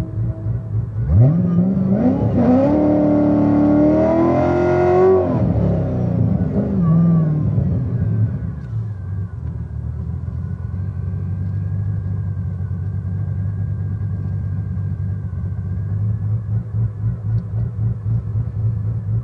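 Supercharged 6.2-litre LT4 V8 of a 2015 Corvette Z06, heard from inside the car: revved up hard for about four seconds with the pitch climbing in two steps, then falling back to a lumpy, pulsing idle.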